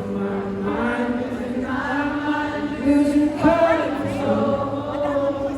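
Live music with wordless singing: voices hold long, sustained notes over steady accompaniment, with a brief pitch glide about three and a half seconds in.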